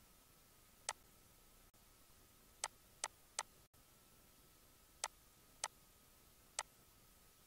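Computer mouse button clicking: seven sharp, single clicks at uneven spacing, three of them in quick succession a few seconds in, over a faint steady hiss.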